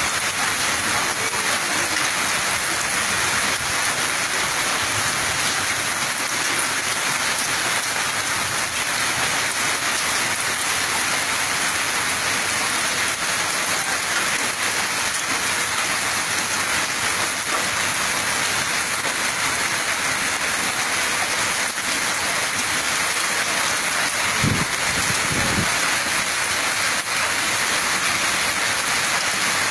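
Hailstorm: hail and heavy rain driven by strong wind onto a street, a steady dense hiss, with a couple of dull low bumps late on.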